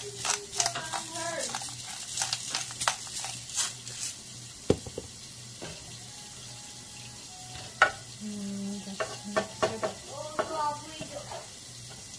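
Diced chicken breast sizzling in a non-stick frying pan, with the clicks of a pepper grinder near the start and then a silicone spatula scraping and stirring the pieces.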